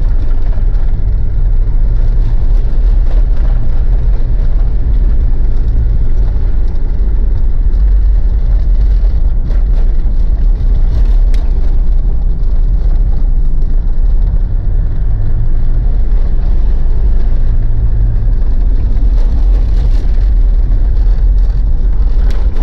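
Mitsubishi Pajero's diesel engine and tyre noise heard from inside the cabin while driving on a snow-covered dirt road: a steady low rumble, with the engine note swelling slightly twice.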